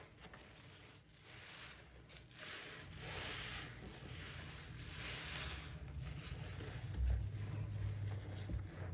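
Soapy sponges squeezed and kneaded by gloved hands in thick suds: wet squelching and crackling foam, swelling in two waves a few seconds apart, with a dull low thump about seven seconds in.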